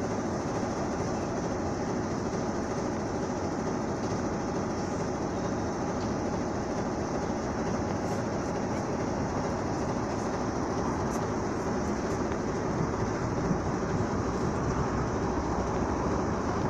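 Steady rumble of a train at a railway station, an even noise with no breaks, with a few faint clicks near the end.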